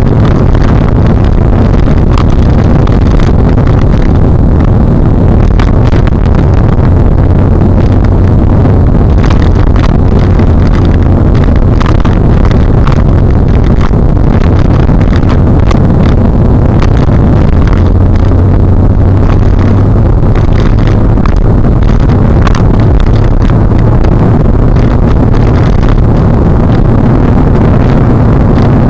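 Car travelling at speed, heard from inside: a steady low engine drone with road and wind noise, broken by many quick buffeting thumps.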